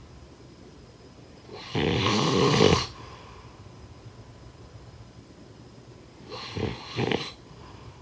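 Snoring: one long, loud snore about two seconds in, then a shorter double snore near the end.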